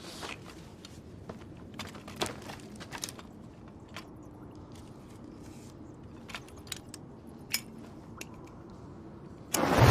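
Scattered small clicks, knocks and crunches over a low steady background, then a sudden loud boom breaks in about half a second before the end.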